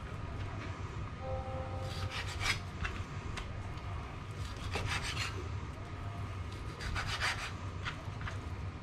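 Kitchen knife sawing through raw venison backstrap and scraping on the cutting board, in three short bursts of strokes, over a steady low hum.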